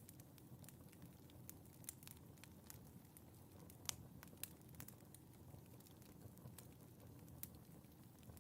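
Wood fire burning in a fireplace, crackling faintly with irregular sharp pops over a soft low rumble of the flames; one pop about four seconds in is louder than the rest.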